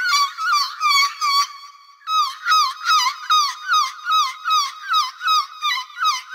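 Gull calling: a rapid series of short, yelping calls, each falling in pitch, about three a second, with a brief break about a second and a half in.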